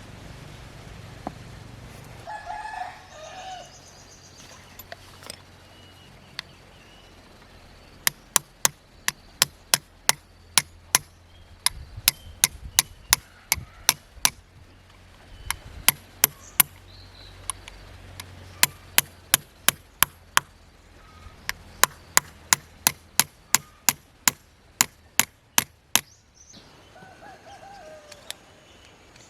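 Runs of sharp hammer strikes, about two to three a second, starting about eight seconds in and stopping shortly before the end. A chicken calls briefly near the start and again near the end.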